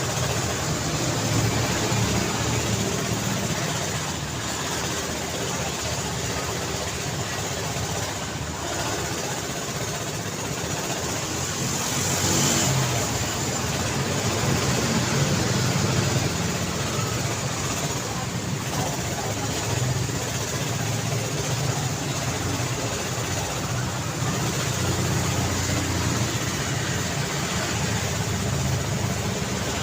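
Continuous busy-road traffic: car and motorbike engines and tyre noise running without a break, swelling louder about midway as vehicles pass close.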